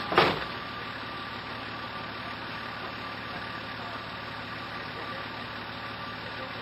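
A 4WD's engine idling steadily, heard from inside the cab, with one sharp knock just after the start.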